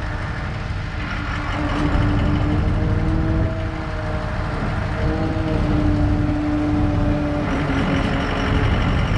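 Service truck running, with a low engine rumble and a steady whine from the crane's engine-driven hydraulic system. The pitch steps up and down a few times as the crane is worked.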